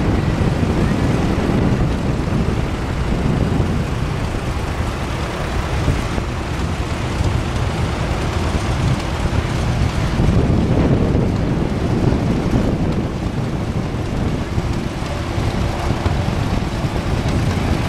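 Engines of a procession of old farm tractors running as they drive past, under heavy wind rumble on the microphone. The sound stays loud and steady throughout.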